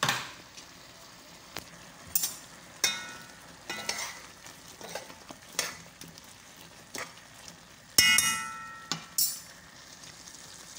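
Metal spoon stirring meat and stockfish in a metal cooking pot, knocking and scraping against the pot with short ringing clanks, the loudest about eight seconds in. Under it runs a faint steady sizzle from the pot cooking on the stove.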